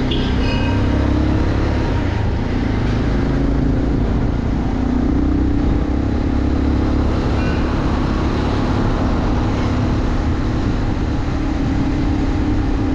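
Motorcycle engine running at a steady riding pace, with a low rumble of wind and road noise underneath.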